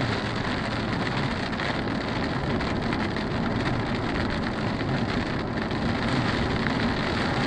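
Heavy rain pelting a moving car, heard from inside the cabin as a steady hiss mixed with road noise.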